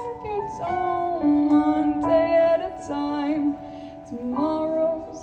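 Music: a solo voice singing held notes without clear words, over a soft instrumental accompaniment.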